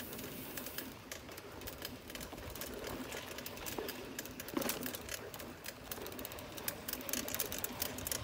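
A mountain bike rolling over a rough dirt trail, its parts rattling and clicking irregularly over the bumps.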